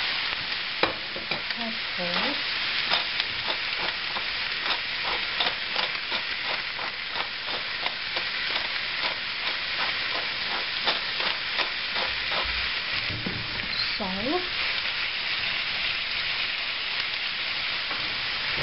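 Chicken legs sizzling in a hot frying pan with no oil, a steady hiss with many sharp pops and crackles, thickest through the middle. Two short squeaky sounds come near the start and about two-thirds of the way through.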